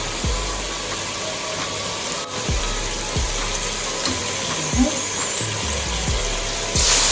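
Chicken gizzards sizzling in a hot pot of burnt-sugar browning, a steady hiss under background music with a beat. Near the end the hiss jumps suddenly louder and brighter, as warm water hits the hot pot.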